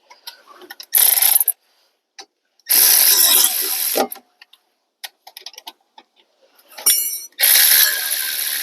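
Ratchet wrench turning the lower caliper bolt on a car's front brake caliper, in three spells of rapid clicking: a short one about a second in, a longer one a little later, and another near the end.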